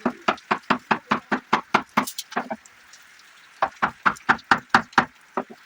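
Rapid hammering on wood: two runs of quick, even blows, about five a second, with a pause of about a second between them.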